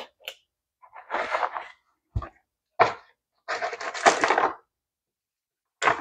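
Small parts rattling and clattering in a small cardboard box as a hand rummages through it, in several irregular bursts, with a sharp click about two seconds in.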